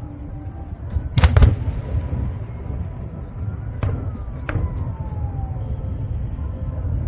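Fireworks going off: a loud cluster of cracking bangs about a second in, then two sharper pops around four and four and a half seconds, with whistling tones falling in pitch between them, over a steady low rumble.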